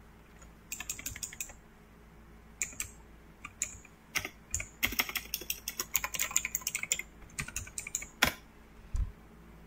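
Computer keyboard typing in irregular bursts of key clicks, fastest and densest in the middle, ending with one sharper, louder keystroke about eight seconds in, followed by a dull low thump.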